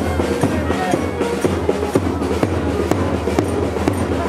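Live procession music: drums struck in quick, uneven strokes under a held melody line, over the noise of a large crowd.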